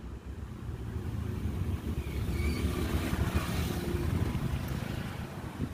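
Clothing being handled: fabric rustling as a denim jacket is pulled out and spread, loudest in the middle, over a steady low rumble.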